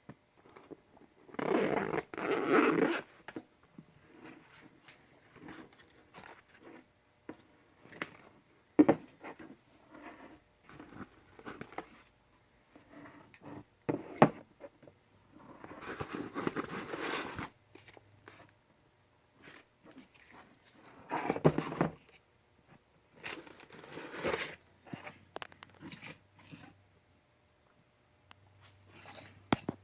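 Handling noises: several rasping, zipper-like scraping bursts a second or two long, with a few sharp clicks between them.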